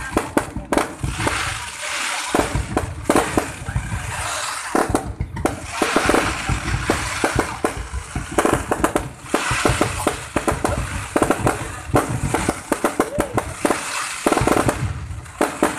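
Fireworks going off in rapid succession: many sharp bangs and crackles following one another throughout.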